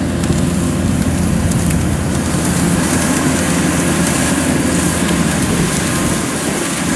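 Kubota DC-105X rice combine harvester running steadily at work close by: a diesel engine hum under the dense noise of its cutting and threshing machinery.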